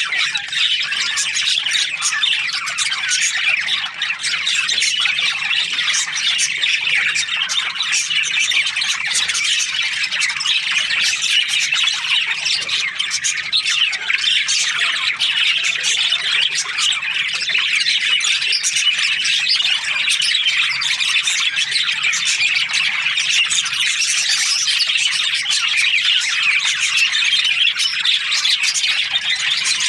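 A flock of budgerigars chirping continuously, many short calls overlapping into a dense, even chatter.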